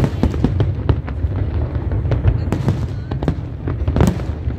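Aerial firework shells bursting in quick succession: a continuous low rumble of booms with many sharp cracks over it, the loudest bang about four seconds in.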